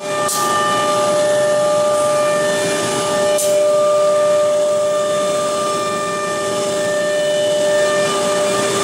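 Double-spindle CNC wood router's HSD spindles running at speed, a steady whine of several held tones as the cutter works a particleboard panel. Two brief hisses come through, about a third of a second in and about three and a half seconds in.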